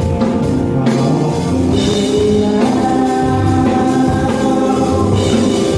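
A band playing with a singer, the voice holding long notes over the music, and drum hits through it.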